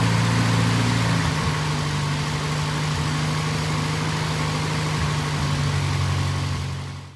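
1952 International Cub's four-cylinder engine idling steadily, settling to a slightly lower note about a second in, then fading out near the end.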